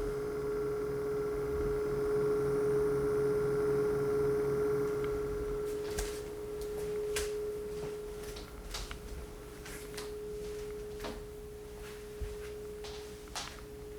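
Dangbei Mars Pro 2 projector giving off a constant whining tone, coil-whine-like, which the owner traces to the digital micromirror device in its optical engine: a hardware fault. The tone is steady and grows fainter about six seconds in, with a few faint clicks after that.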